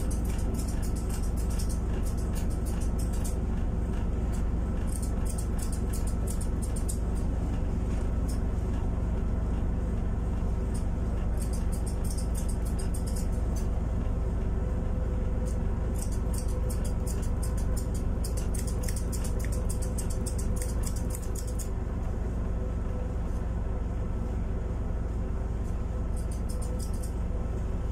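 Grooming scissors snipping fur in several runs of quick cuts, with pauses between runs, over a steady low hum.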